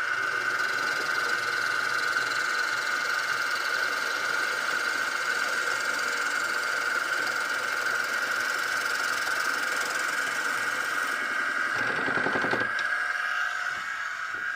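Wood lathe running with a steady high whine while a drill bit held in a drill chuck bores into a spinning wooden pen blank. A brief louder, coarser stretch comes about twelve seconds in.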